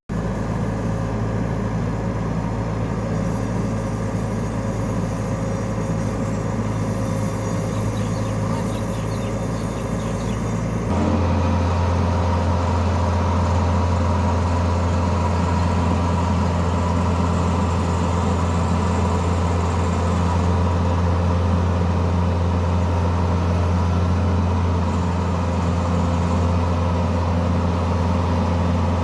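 Heavy machine engine running steadily under load. About a third of the way in, its low drone changes abruptly to a different steady note.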